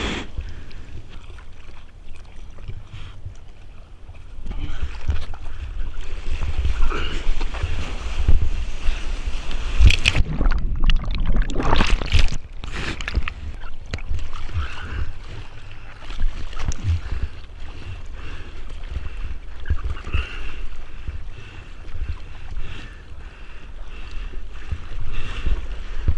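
Ocean water sloshing and splashing close to the microphone, over a low wind rumble. The splashing grows louder and choppier for a few seconds about ten seconds in.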